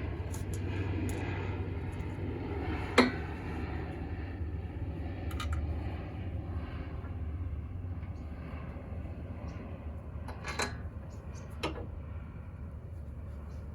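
Steady low running noise of a vehicle, with a few sharp clicks or knocks on top; the loudest comes about three seconds in, and two more come near the end.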